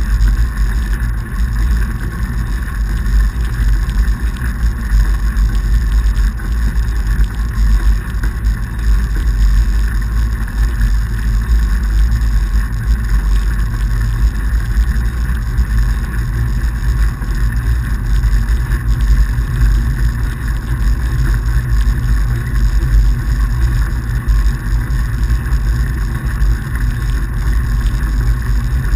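Steady rumble of a fatbike being ridden over packed snow, heard through a handlebar-mounted action camera: wind on the microphone and the fat tyres rolling, with no break or change.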